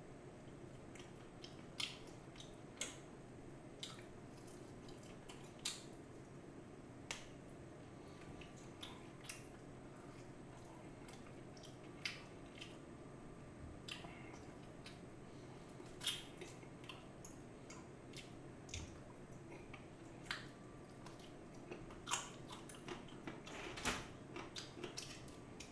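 Close-up sounds of a person eating crispy seasoned fried chicken: irregular sharp crunches and bites, with softer chewing in between.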